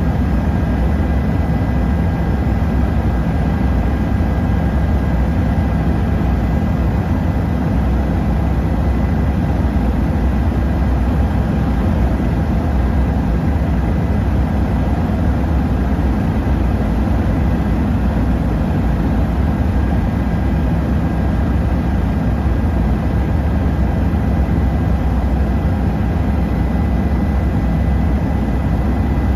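Helicopter in flight heard from on board: a steady, unbroken drone of engine and rotor, with a couple of faint steady high tones above it.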